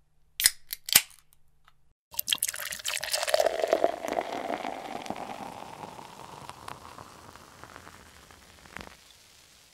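A few sharp clicks, then beer pouring into a glass from about two seconds in. The pouring note rises as the glass fills and fades into fizz.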